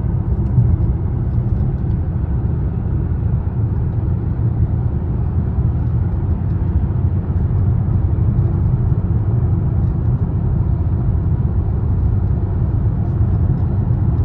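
Steady low rumble of a Mercedes ML350 BlueTec's OM642 3.0-litre V6 diesel, in a vehicle whose owner reports an intermittent hiccup, surge or misfire.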